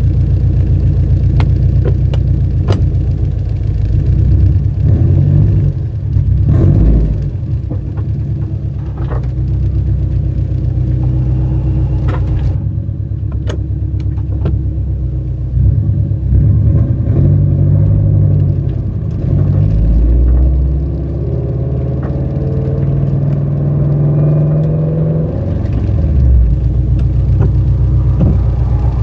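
Toyota GR86's 2.4-litre flat-four running through a JDL unequal-length header, 3-inch front pipe and HKS cat-back exhaust, giving the uneven boxer rumble that such a header produces. Engine speed rises and falls several times in the second half, with scattered sharp clicks.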